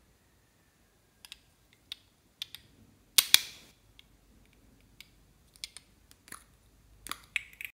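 Two novelty plastic lipstick tubes handled close to the microphone: scattered small plastic clicks and taps, one louder knock a little after three seconds, and a quick run of clicks near the end.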